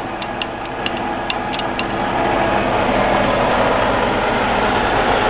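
Jet 13 x 40 geared-head lathe running under power, a steady mechanical hum from its gearing with several steady tones. A few light ticks sound in the first two seconds, and the hum grows louder about two seconds in.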